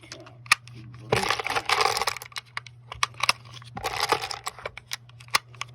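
5.56 cartridges being pressed one at a time into an AR-15 magazine: sharp clicks as each round seats, with brass rattling and scraping as rounds are handled. A faint steady low hum underneath.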